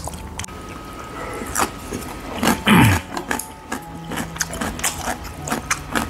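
Close-up eating sounds of a man eating clam noodle soup: chopsticks clicking against ceramic bowls, and one loud slurping mouth noise about halfway through, over soft background music with held notes.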